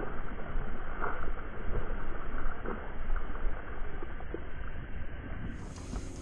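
Wind buffeting the microphone over open water, a steady rushing noise with a few light knocks scattered through it. Near the end the sound turns brighter and a faint steady hum appears.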